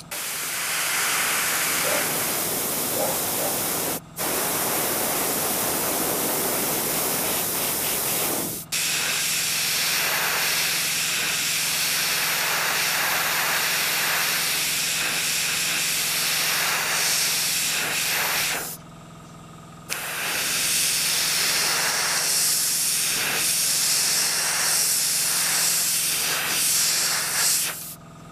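Airbrush hissing as it sprays paint onto a wooden fishing lure. The air stops in a few short breaks, the longest about a second long, two-thirds of the way through.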